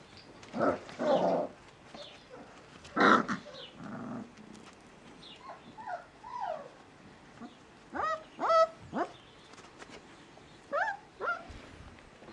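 Bouvier des Flandres puppies yapping and growling, with high whining yelps that rise in pitch, about eight seconds in and again near the end.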